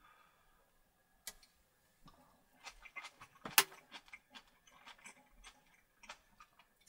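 Crisp fried sara udon noodles crunching as they are bitten and chewed: an irregular run of small crackles, with one sharper, louder crack about three and a half seconds in.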